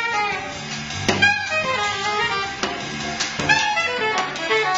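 Live jazz band playing: a saxophone line over electric bass and drums, with sharp drum strikes about a second in and again near three and a half seconds.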